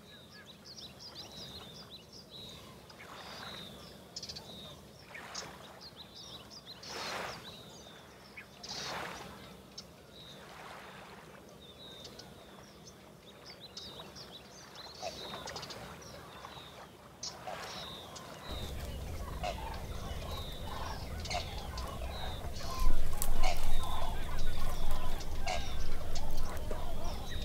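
Farmyard birds calling: loud fowl-like calls repeating about every two seconds over small birds chirping. About two-thirds of the way through a low steady rumble sets in, and near the end come sharp crackles and snaps from a small fire of dry twigs.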